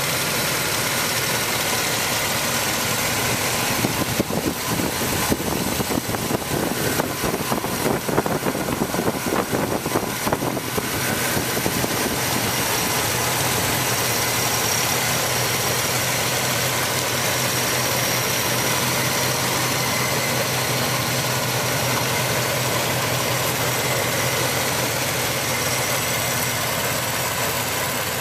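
Pontiac Firebird's engine idling under an open hood. About four seconds in the sound turns choppy and uneven for several seconds, then settles into a steady idle.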